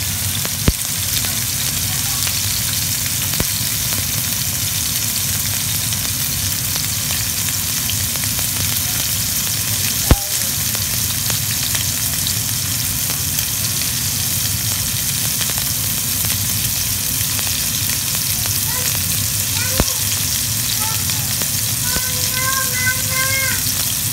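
Two pepper-seasoned steaks searing in oil in a hot skillet: a steady sizzle, with three sharp pops spread through it.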